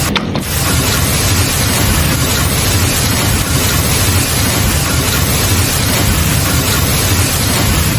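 Storm noise: a loud, steady hiss of heavy rain or hail falling, with low wind rumble on the microphone.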